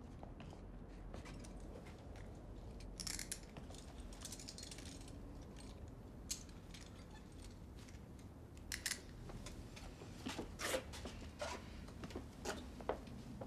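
Faint scattered clicks and rustles over a low steady room hum, with a cluster of sharper clicks in the second half.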